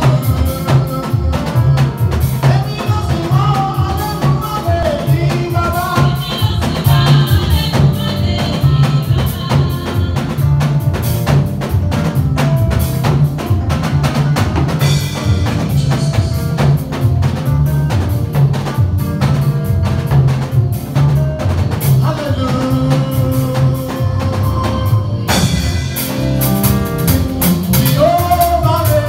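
Church praise music with a steady drum-kit beat and bass, and a man singing over it through a microphone and PA.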